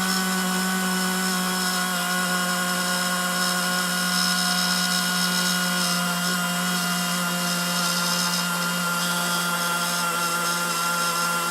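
A small electric motor running steadily at one pitch, with a constant hum and whine.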